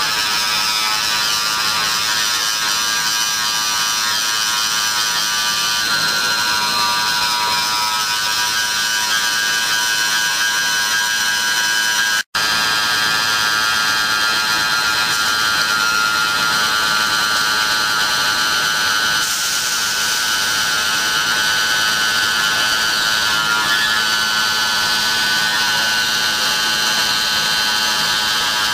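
Spindle of a 5-axis CNC milling machine running at speed while its cutter machines a part: a steady high whine made of several tones at once. It drops out for an instant about twelve seconds in.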